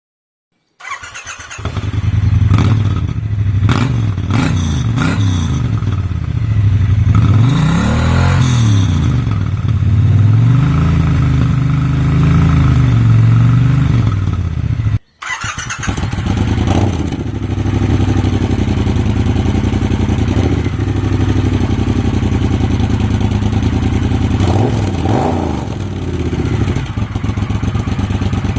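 Triumph T120 parallel-twin motorcycle engine idling and being revved a few times through its standard pea-shooter silencers. After a sudden cut about halfway through, it idles and revs again through a Tec Bike chrome GP-can slip-on silencer with its baffle fitted.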